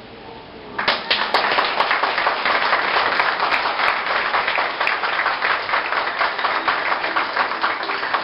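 A crowd applauding, breaking out suddenly about a second in and keeping up a steady clapping.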